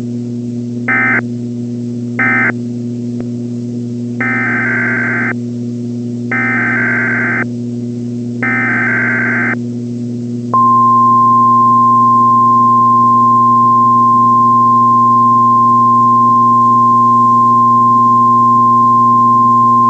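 Emergency Alert System SAME data bursts on a weather-radio broadcast: three short end-of-message bursts, then three roughly one-second header bursts. About ten and a half seconds in, the steady 1050 Hz weather-radio warning alarm tone starts, all over a constant electrical hum.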